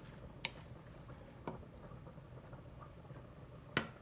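A cooking utensil knocks against a pan a few times, with the loudest knock near the end, over a low steady hum.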